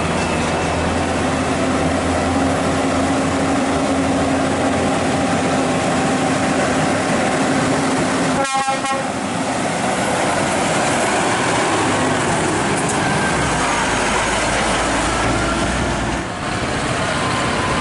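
Heavy Scania trucks hauling loaded lowboy trailers up a hill, the diesel engines labouring and the trailers rattling as they pass close by. A deeper engine drone swells in the second half as a truck with its excavator load goes by.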